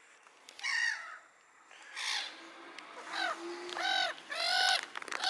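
A gull calling: a series of about six short, clear, pitched calls, coming closer together and louder towards the end.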